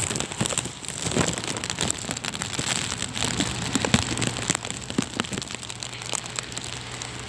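Heavy rain falling, with many individual drops striking close by as irregular sharp taps over a steady rush.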